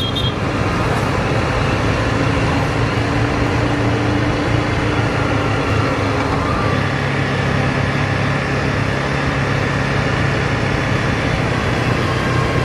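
Honda CRF Rally's single-cylinder engine running steadily at cruising pace, mixed with a steady rush of wind and road noise.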